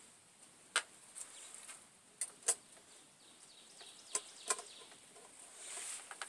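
Food heating in a Swiss army mess kit pan over a homebrew alcohol stove, crackling and popping: a handful of sharp pops over a faint steady hiss.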